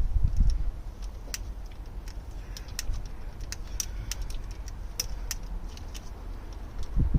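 Scattered light metallic clinks and ticks of spanners working on the heater valve's fittings, with a few dull handling bumps near the start and about seven seconds in.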